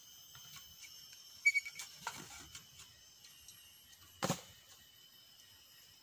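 Wooden bird-trap cage being handled and fixed onto a pole: a brief high squeak about a second and a half in, light scraping, then one sharp knock near the end. Forest insects drone steadily underneath.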